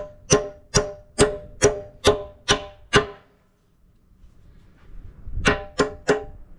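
A hammer tapping a steel keyway pin into an excavator bucket tooth: about seven evenly spaced, ringing metallic strikes, roughly two a second, then a pause and three more near the end.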